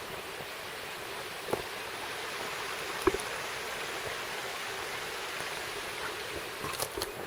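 Steady rush of running water, with a few soft knocks about a second and a half in, about three seconds in, and a cluster near the end.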